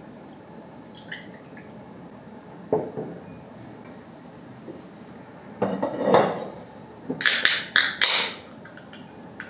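Light knocks of a drinking glass handled on a table, then an aluminium can of sparkling water being cracked open: a run of sharp tab clicks and short fizzing hisses near the end.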